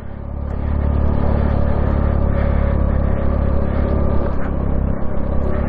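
Honda Navi's small air-cooled single-cylinder engine pulling steadily under way. It builds over about the first second, then holds an even pitch, with wind rushing across the microphone.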